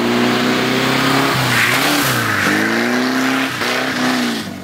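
Classic Volkswagen Beetle's air-cooled flat-four engine revving hard through a roundabout, its pitch climbing, dropping sharply and climbing again about three times as the throttle is lifted and reapplied. A brief tyre squeal rises about two seconds in.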